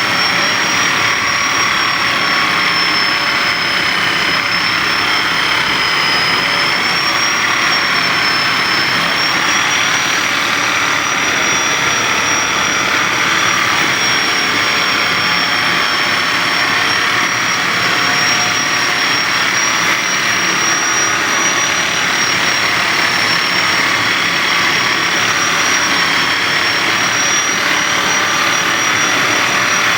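Steady whirring of a small electric motor: a high whine that drifts slightly in pitch over a loud, even rushing noise, with no breaks.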